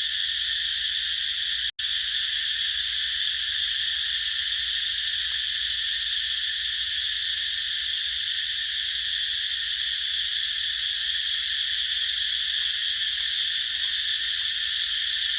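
Dense chorus of cicadas shrilling continuously in a high, steady buzz. It cuts out for an instant about two seconds in.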